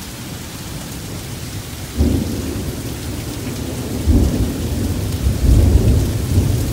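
Heavy rain falling steadily, with thunder breaking suddenly about two seconds in and rumbling on, swelling again near the end.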